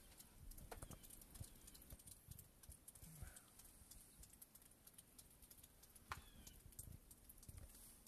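Near silence with faint, irregular clicks and soft knocks from footsteps and a handheld camera being carried, plus one short falling chirp about six seconds in.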